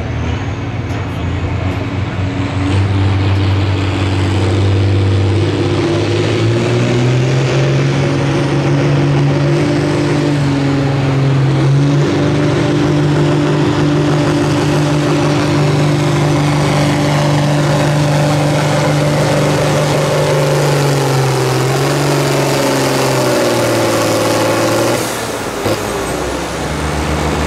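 Pulling tractor's engine at full throttle hauling the weight sled, loud and steady, its pitch stepping up twice in the first several seconds. The engine note sags and then drops away about 25 seconds in.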